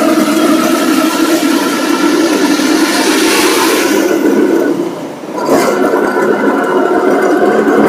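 Street traffic: vehicle engines running with a steady drone and road noise. The sound dips briefly about five seconds in, then comes back after a short sharp knock.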